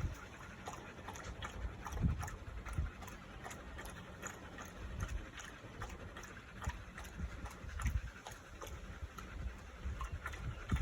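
A dog lapping water from a drinking fountain: a run of quick wet clicks, over low rumbling.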